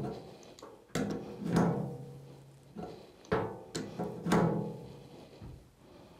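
Adjustable spanner clanking on a cable gland nut and a metal enclosure as it is repositioned and turned to tighten the nut. There are about seven irregular knocks, each ringing briefly with a metallic tone.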